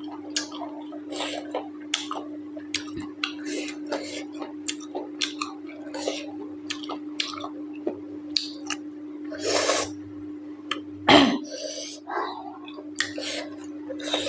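Close-miked chewing and mouth sounds of someone eating curry and rice: many short wet smacks and clicks, with two longer, louder noisy sounds a little past the middle. A steady low hum runs underneath.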